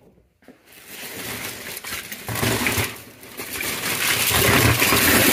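A plastic shopping bag rustling and crinkling as it is handled, building near the end into the clatter of a pile of small die-cast toy cars (1970s Hot Wheels) tumbling out of it onto a cardboard tray.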